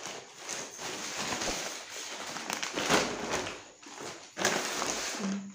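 Plastic packaging crinkling and rustling in uneven swells as a plastic courier bag is handled and the chip bags are pulled out of it.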